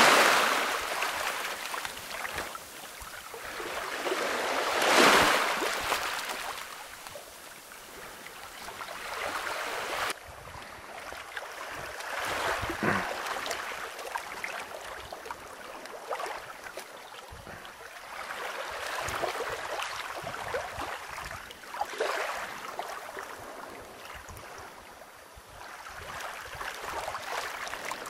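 Small sea waves washing onto a pebble beach, the rush of water over the stones swelling and fading every few seconds.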